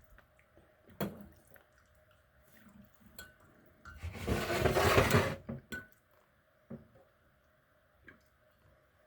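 Light clicks and clinks of small metal pocket knives being handled and set down, with a louder rushing noise of about a second and a half around four seconds in.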